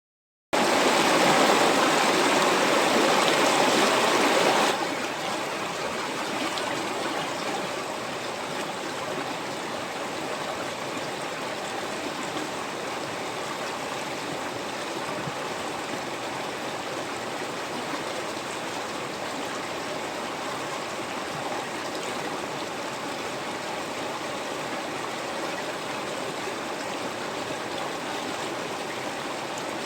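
River water flowing in a steady, even rush. It is louder for the first four or five seconds, then settles to a lower, constant level.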